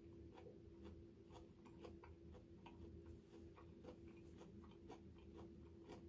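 Near silence: faint, quick clicks at about three to four a second over a low steady hum.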